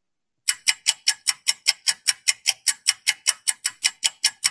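Clock-like ticking of a quiz countdown timer sound effect: evenly spaced sharp ticks, about five a second, starting about half a second in.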